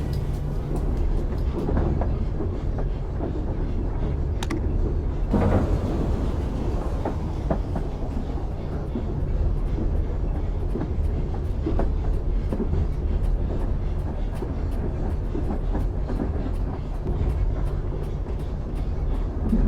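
Steady low rumble of a moving vehicle, with a fast, even clicking of about three a second through most of it and a single knock about five seconds in.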